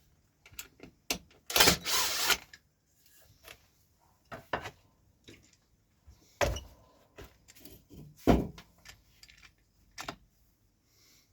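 Irregular knocks, taps and short scrapes of objects being handled. There is a longer scrape about two seconds in and two heavier knocks later on.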